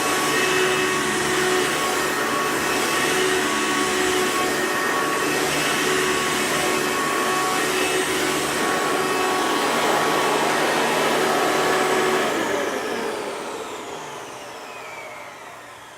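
Hoover Runabout commercial vacuum running steadily, with a thin whistle that the owner takes for an air leak. About twelve seconds in it is switched off and the motor winds down, its pitch falling.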